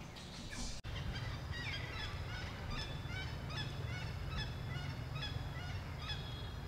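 A rapid series of short, high-pitched animal calls, two or three a second, over a steady low rumble.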